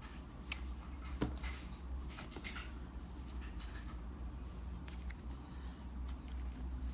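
Slime being squished and kneaded by hand, with scattered small sticky clicks and pops over a steady low hum.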